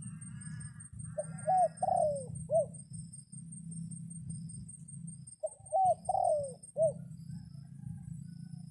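A dove cooing twice, each phrase a short run of three or four descending coo notes, over a steady low rumble. The dove is a decoy calling to draw in wild doves.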